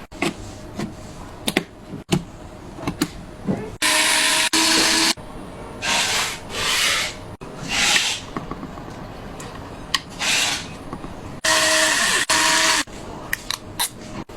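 Small electric screwdriver running in short bursts, the longest two about a second each, near the start and near the end, with small clicks and handling knocks between.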